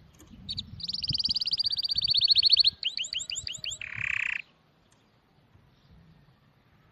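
A songbird singing one phrase: a rapid high trill that grows louder, a run of about six quick slurred notes, and a short harsh buzzy note, ending abruptly about four and a half seconds in.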